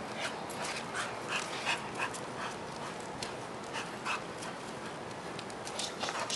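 Pit bull-type dog panting and whimpering in quick short breaths while jumping up and playing.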